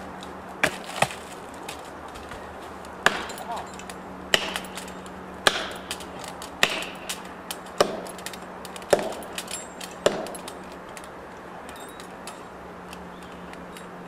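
Heavy hammer blows driving a felling wedge into the cut of a large tree being felled, a regular series of about nine sharp cracks roughly a second apart that ends about ten seconds in.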